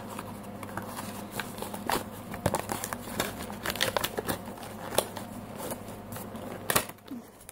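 Irregular small clicks and crinkling as a doll dress is worked free of its plastic hanger and packaging.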